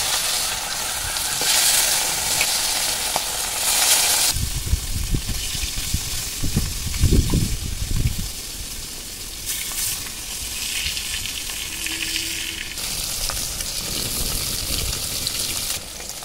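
Fish steaks sizzling as they fry in hot oil in an iron kadhai. The sizzle is loudest for the first four seconds or so, then quieter, with a few low thumps around the middle.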